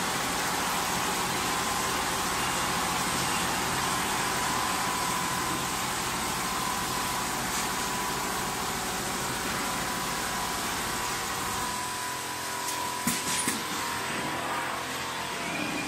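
Multi-head automatic quilting sewing machine running, a steady mechanical whir with a thin high whine. The low hum drops away about three-quarters of the way through, followed by a couple of sharp knocks.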